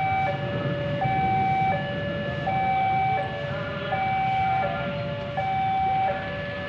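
Railway level-crossing warning alarm sounding its electronic two-tone chime, a high note and a lower note of roughly equal length alternating without pause, over a low rumble.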